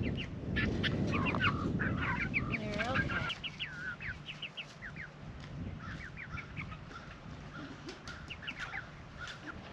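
A group of young chickens peeping, many short high cheeps overlapping. A louder scuffling noise runs under the first three seconds, then the peeping continues more quietly.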